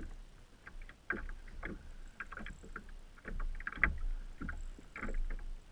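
Water slapping and splashing against a kayak's hull in irregular small splashes, over a low rumble.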